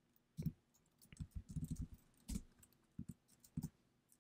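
Typing on a computer keyboard: irregular, fairly quiet keystrokes, with a quick run of keys in the middle.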